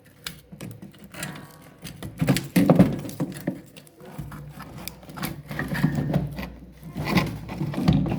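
Irregular knocking, clicking and rattling of parts and tools being handled on a washing machine, loudest in two spells a few seconds apart, with a low steady hum joining about four seconds in.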